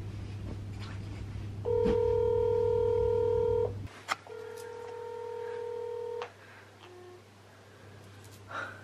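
Smartphone video call ringing out: two long steady ringing tones of about two seconds each, half a second apart, with a light click between them.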